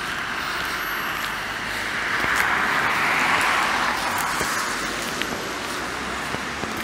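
A car driving past, its tyre noise swelling to a peak about three seconds in and fading again over steady traffic noise.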